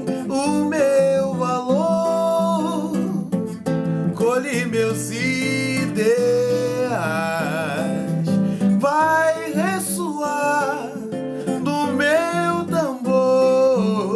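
A man singing a samba-enredo melody in Portuguese, with long held notes, over a strummed acoustic guitar.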